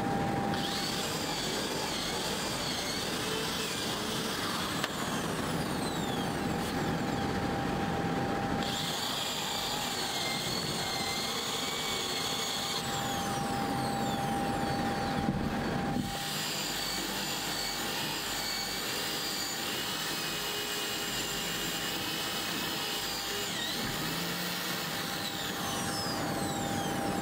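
Handheld corded electric drill running as it bores holes through a plastic water tank. Its whine wavers in pitch and comes in three long runs, over a steady faint hum.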